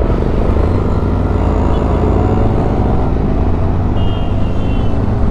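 Road traffic: a steady low rumble of vehicle engines running in heavy traffic.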